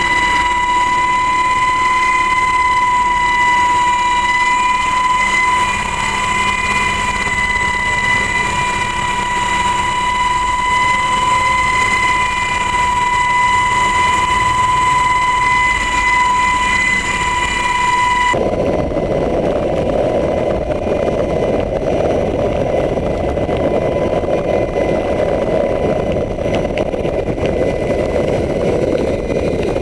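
Helicopter heard from inside the cabin: steady turbine and gearbox whine with rotor noise. About two-thirds of the way through it changes abruptly to a rougher rush of rotor wash and wind at the open door during the rescue hoist.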